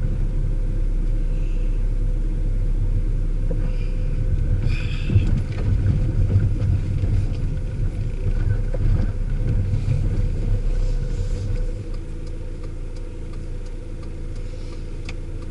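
Car running with a steady low engine and road rumble, easing slightly about twelve seconds in.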